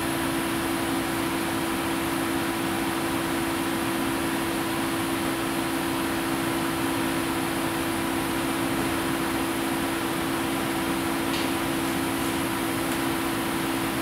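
Steady machine hum and hiss, like a fan or ventilation running, with a constant low droning tone that does not change.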